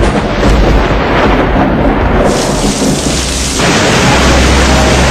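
Heavy rain pouring down, a loud steady rush with a deep rumble underneath; the hiss gets brighter about two seconds in.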